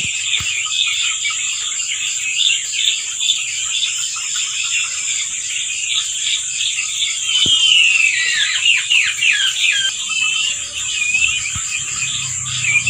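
Many caged quail chirping and peeping, with quick falling calls that get busier midway, over a steady high-pitched insect drone. A couple of sharp clicks stand out.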